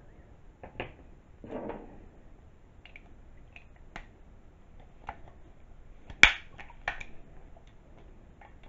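Scattered light clicks and taps of a steel reloading die being handled and turned over in the hands, with a brief rustle about a second and a half in; the sharpest click comes about six seconds in.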